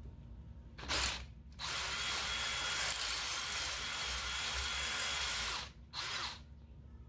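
Power drill boring a hole through a Jeep Dana 44 differential housing: a short burst, then about four seconds of steady drilling, then another short burst.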